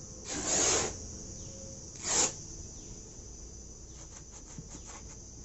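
Two rasping rubs across the casing of an old monoblock water pump motor as it is cleaned, the first about half a second long and the second shorter, about two seconds in. Crickets trill steadily behind, with a few light taps near the end.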